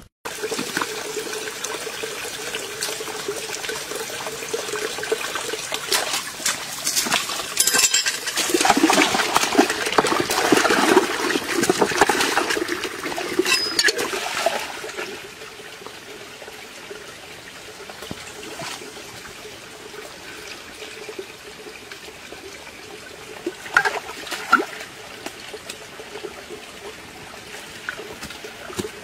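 Water sloshing and trickling as hands dig among rocks in a shallow muddy stream, louder and splashier for several seconds in the first half, then settling to a quieter steady wash with a couple of sharp clicks.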